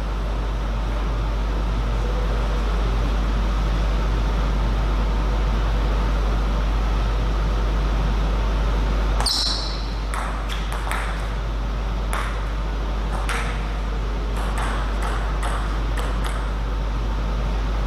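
Table tennis ball clicking sharply off bats and table in an irregular string of hits, starting about halfway through, over a steady low hum in a hall.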